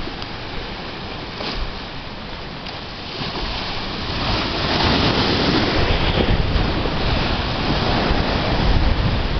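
Choppy sea and surf washing over rocks, with wind buffeting the microphone; it grows louder about three to four seconds in.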